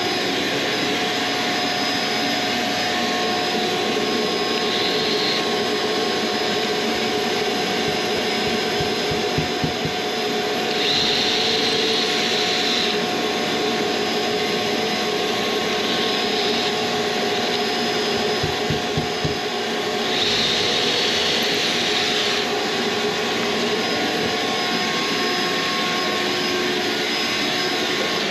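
Shop vacuum running steadily while a cordless drill bores pilot holes through drywall into a wood stud. Twice the drill is tapped with a few quick trigger pulses as the bit breaks through the drywall, then runs for about two seconds as it cuts into the stud.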